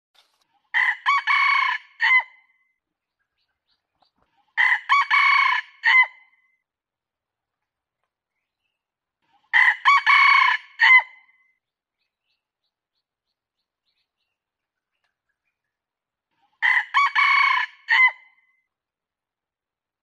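Red junglefowl rooster crowing four times, widely spaced. Each crow is a short phrase of about a second and a half, broken into several quick notes, with silence between crows.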